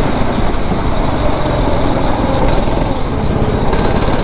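9 hp kart engine running steadily, a loud continuous drone.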